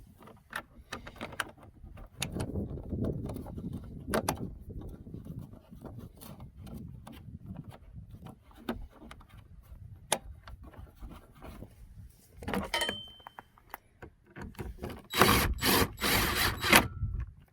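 Cordless drill driving a screw in a few short, loud bursts near the end. Before that come scattered clicks and rubbing as the parts and screw are handled and lined up.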